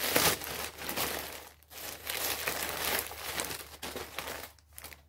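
Plastic mailing bag and clear plastic wrapping crinkling and rustling as they are handled and pulled apart, with a brief lull about a second and a half in and quieter toward the end.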